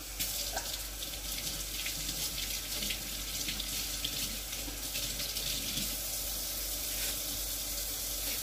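Kitchen tap turned on and running steadily into a sink.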